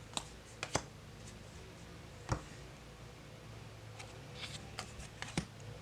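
Tarot cards being handled: a scatter of light clicks and taps as the cards are separated and laid down, over a faint steady room hum.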